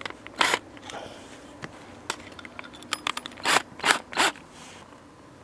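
A string of short scrapes and clicks as the pilot bit of a cordless drill's hole saw is set against wooden siding, most of them in the second half; no drill motor runs.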